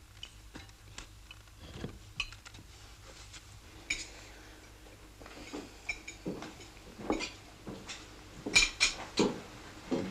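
Cutlery clinking and tapping against china plates at a dinner table, in scattered light clicks, with a few louder knocks near the end.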